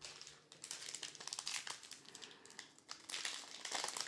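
Foil booster pack wrapper crinkling and crackling as it is handled and torn open, an irregular run of small crackles with louder bursts about a second in and again near the end.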